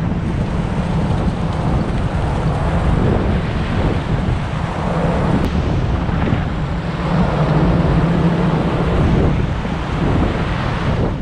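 Icebreaker's hull pushing through pack ice: a steady low rumble of ice grinding along the hull, with heavy wind noise on the microphone.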